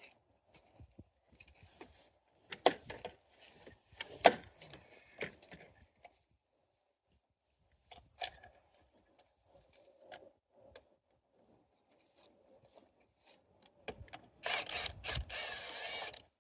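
Metal tools and hardware clinking and knocking, with two sharp knocks a few seconds in, then about two seconds of dense rattling near the end, during work on the bale feeder's stainless steel bolts.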